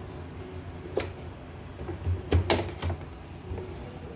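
A few sharp plastic clicks and knocks, bunched together about two to three seconds in, from hands handling a CNY portable embroidery machine and its embroidery hoop, over a low steady hum.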